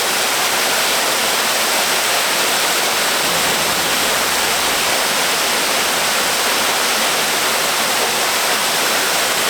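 Waterfall rushing steadily, an even, unbroken wash of falling-water noise.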